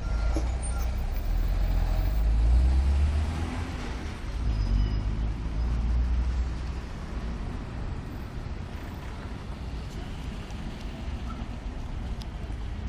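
Road traffic: a motor vehicle's low rumble passing, loudest in the first six seconds, then settling to steady traffic noise.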